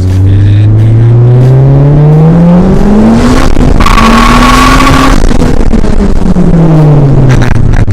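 Car engine revving hard, its pitch climbing for about three seconds. In the middle comes a loud hissing burst with a thin steady squeal. The engine pitch then falls back down.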